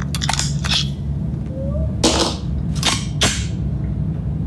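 A handgun being unloaded: the magazine dropped to the floor and the slide racked, heard as a run of sharp metallic clicks and clacks, several of them spread over a few seconds, over a low steady hum.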